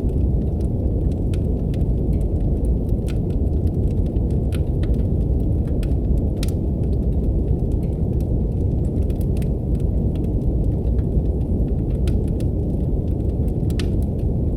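Steady deep brown noise, a dense low rumble, with the sparse crackle and snap of a wood fire in a fireplace over it. The pops come irregularly, a few each second at most.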